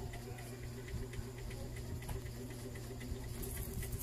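Foil seasoning sachets handled over instant noodles: faint crinkles and light ticks over a steady low hum, then a hissing rustle near the end as seasoning powder is shaken from its packet.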